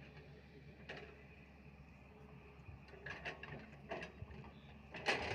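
Scattered light knocks and scrapes over a low steady background, the loudest one about five seconds in.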